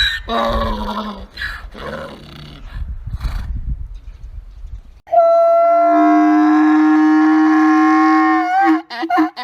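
Donkey braying: a run of harsh, broken calls, then a long steady held note, then quick repeated pulses near the end.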